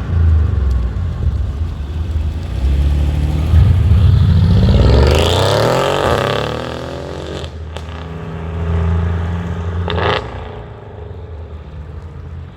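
A modified 2016 Mercedes CLS63 S AMG with Pure Stage 2 turbos and a full aftermarket exhaust: its 5.5-litre twin-turbo V8 runs, then revs up hard about three and a half seconds in, its pitch rising for a couple of seconds before it eases off. Two short sharp sounds follow, about two and a half seconds apart, and then it settles to lower, steadier running.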